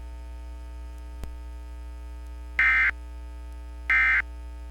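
Emergency Alert System end-of-message data tones: two short, harsh buzzing bursts of the digital 'NNNN' code about a second and a quarter apart, sent to close an EAS test, over a steady hum.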